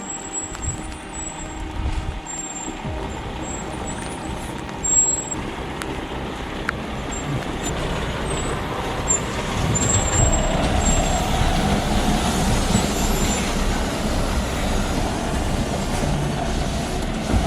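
Diesel engine of a loaded Tatra Phoenix 6x6 truck running under load as it drives along an icy track, getting louder about ten seconds in.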